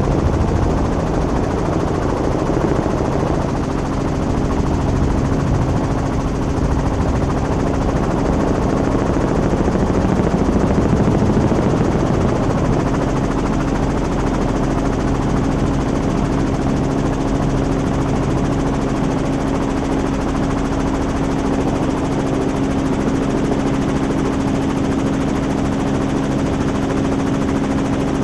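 Helicopter rotor and engine running steadily, heard from aboard in flight: a fast low beat of the blades under a steady hum.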